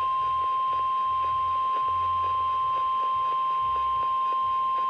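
Weather-radio alert tone: a single steady high-pitched tone held unbroken at an even level, the alarm that announces a National Weather Service warning broadcast.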